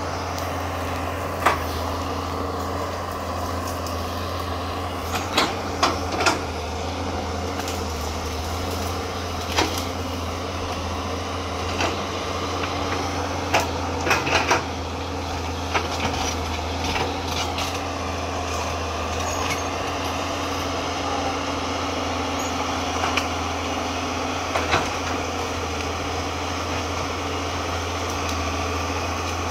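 Caterpillar 320C hydraulic excavator's diesel engine running steadily under load, with scattered sharp knocks and cracks as it works through the brush. The knocks come singly and in short clusters, most of them in the first half.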